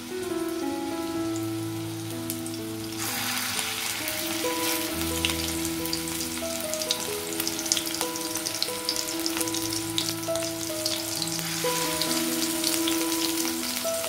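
Chicken-and-spinach kebab patties shallow-frying in sunflower oil in a pan: the oil sizzles with many small pops, much louder from about three seconds in. Background music with a melody plays over it.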